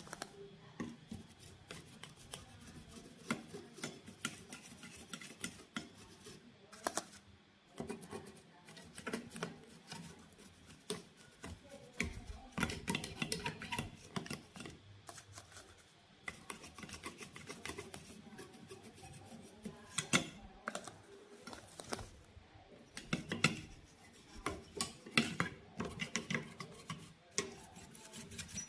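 Hand work on electronics parts: irregular clicks, taps and scraping or rubbing of tools and parts, with no steady machine sound.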